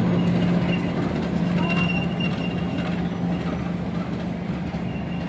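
Steady low diesel hum of a standing passenger train, its engines idling, with a thin high whine that comes and goes.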